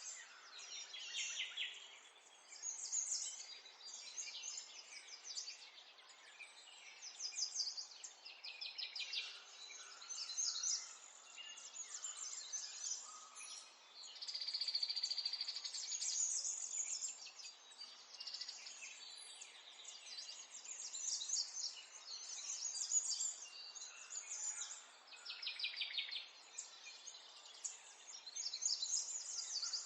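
Morning chorus of small songbirds chirping and singing, with quick trills of rapidly repeated notes overlapping and coming and going throughout, over a faint steady background hiss.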